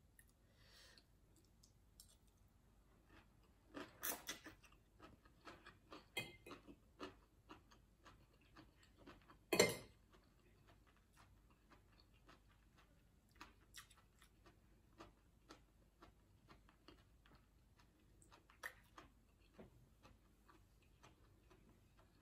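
Quiet eating sounds: chewing, and small clicks of a metal fork and spoon against a glass bowl and plate. The clicks are scattered throughout, with louder ones about four seconds in and the loudest just under ten seconds in.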